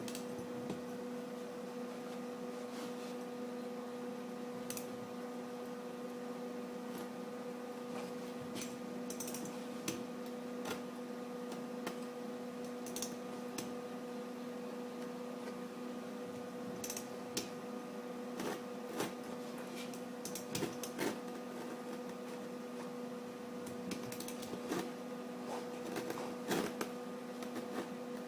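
Steady electrical hum of a welder with scattered sharp clicks and crackles, coming more often near the end, during welding of a washer and nut onto a bolt broken off in a cast-iron exhaust manifold.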